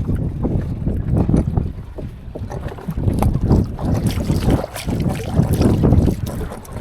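Wind buffeting the microphone in uneven low, rumbling gusts on a small open boat at sea.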